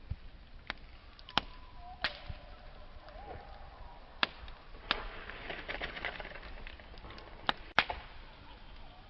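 Wood campfire crackling, with sharp single pops about seven times and a denser run of crackling a little past halfway. A faint, wavering thin whistle runs underneath for the first few seconds.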